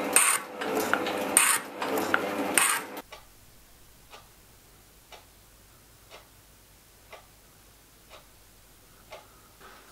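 Metal shaping machine cutting an aluminium bronze block, with about one cutting stroke a second. About three seconds in it stops abruptly, leaving a quiet room where a clock ticks faintly once a second.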